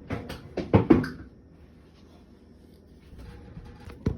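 A quick run of sharp clicks and knocks during the first second or so, then a few faint ticks and one sharp knock near the end: handling noise.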